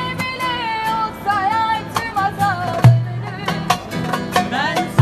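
A young woman singing a Turkish song in a wavering, ornamented melody over plucked-string accompaniment, with a heavy low beat about three seconds in.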